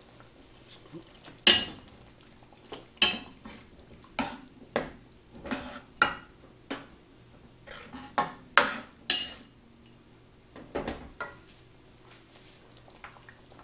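Steel ladle stirring prawns into a thick masala sauce in a pan, knocking and scraping against the pan in a series of sharp, irregular clinks that stop shortly before the end.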